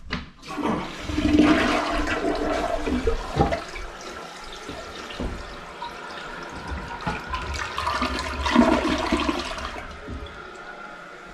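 Toilet flushing: water rushes into the bowl and drains away freely, growing louder again about eight seconds in before tapering off. The flush goes down normally because the clog has just been cleared with a closet auger.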